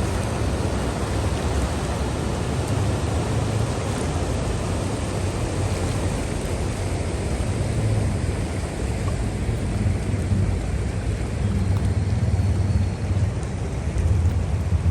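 Bagmati river in flood, muddy floodwater rushing past in a steady, unbroken wash of noise with a deep low rumble.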